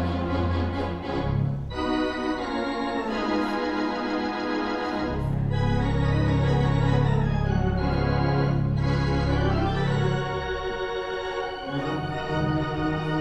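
Wurlitzer theatre pipe organ playing sustained, changing chords. A deep pedal bass line drops out about two seconds in and comes back about three seconds later.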